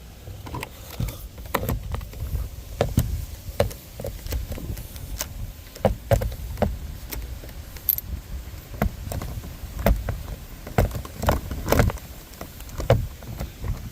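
Irregular clicks and knocks of plastic and metal parts being handled and fitted on a truck's interior door trim panel, over a steady low rumble.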